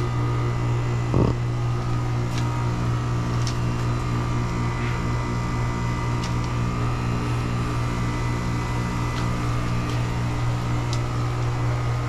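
Outdoor central air-conditioning condenser unit running: a steady low hum from the compressor and fan. A few faint ticks and a single soft knock about a second in.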